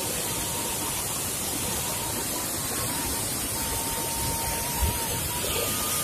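Waterfall and stream water rushing, a steady, even wash of noise, with a brief low thump about five seconds in.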